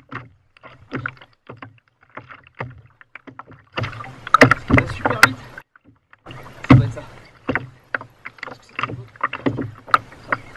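A spinning reel being cranked as an angler fights a hooked fish from a kayak, with irregular clicks, knocks and rattles from the rod, reel and boat; the loudest come in a cluster about four to five seconds in and again just before seven seconds.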